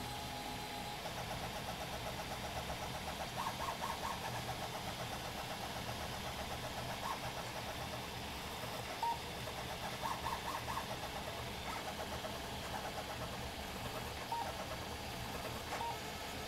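Stepper motors of a Hypercube-style CoreXY 3D printer driving the print head at very high speed, at a 300% speed override. They whine in rapid, constantly changing pitched chirps as the head darts back and forth. A steady low hum runs underneath.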